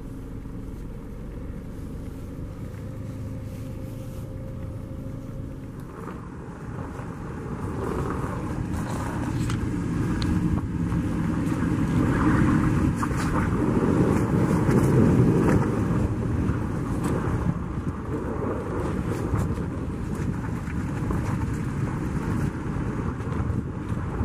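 A car running at low speed, a steady low hum, then from about six seconds in a louder rushing rumble as it drives over snow, swelling and easing off.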